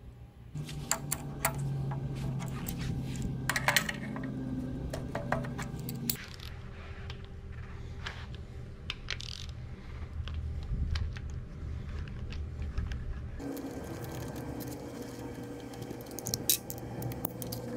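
Hand ratchet clicking on a socket and metal clinks of bolts and tools as fasteners are undone on an engine block, coming as irregular sharp clicks.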